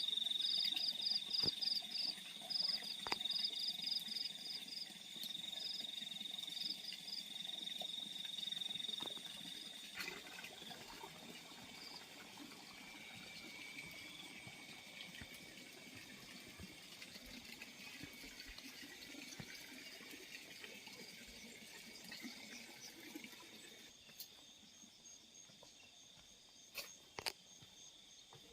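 Field crickets calling at night: a rapid pulsed chirping and a steady high trill that fade away over the first ten seconds, then a lower, fainter trill that carries on until near the end, with a few scattered clicks.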